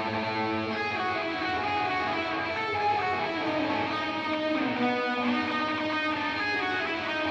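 Electric guitar played through an amplifier, a run of notes and chords that keeps changing with no pause.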